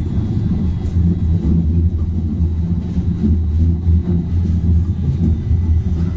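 Steady low rumble of a tram-train running at speed, heard from inside the passenger cabin, with a faint steady high whine over it.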